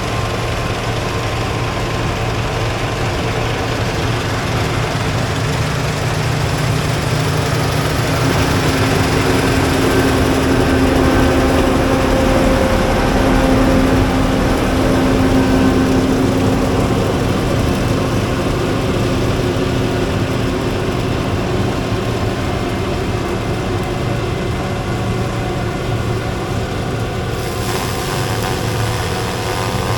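Heavy farm vehicle's engine running steadily at working speed, with a low hum. Its tones shift a little near the end.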